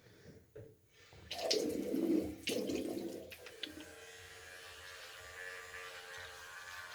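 Tap water running and splashing as a face is rinsed at a sink, loudest in the first half, then a faint steady hum.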